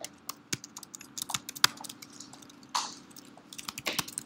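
Typing on a computer keyboard: irregular, quick keystrokes as terminal commands are entered. A brief rushing hiss, like a breath, comes about three seconds in.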